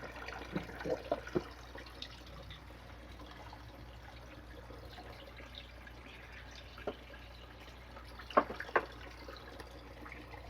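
Water dripping from the freshly cut PVC pipe, with a few sharp plastic clicks and knocks, two of them close together near the end, over a steady low hum.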